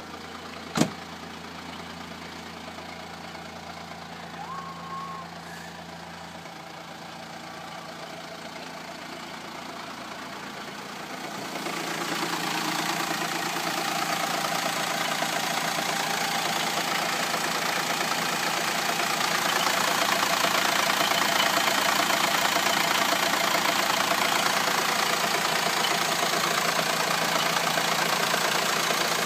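Renault Espace IV's 2.2 dCi four-cylinder diesel engine idling steadily. There is a sharp click just under a second in. About twelve seconds in the engine sound becomes louder and brighter, then holds steady.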